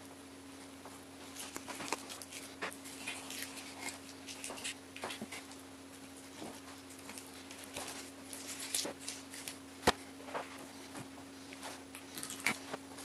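A knife cutting and scraping raw pork hock meat off the bone on a plastic cutting board: scattered small clicks and scrapes, with one sharp knock about ten seconds in. A faint steady hum runs underneath.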